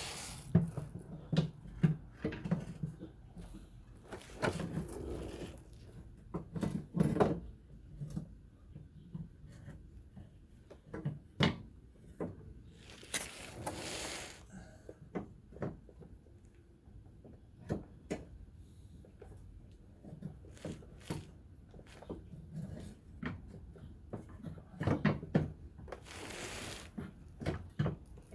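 Irregular knocks, clicks and rustling from a new fuel filler neck being handled and fitted into the car, with two longer scraping rushes, one midway and one near the end.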